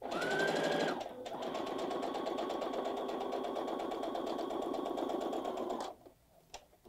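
Baby Lock Jubilant computerized sewing machine sewing a straight stitch through a plastic zipper's tape with the zipper foot. The motor whine rises as it starts, dips briefly about a second in, then the needle runs at a steady fast stitch until it stops near the end.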